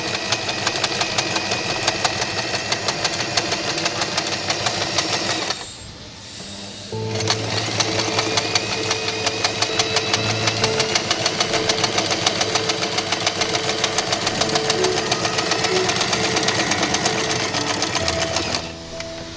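Electric home sewing machine stitching at speed with a gathering foot, the needle clicking rapidly as it sews a nylon net strip into gathers under high thread tension. It stops for a second or so about six seconds in, runs again, and stops shortly before the end.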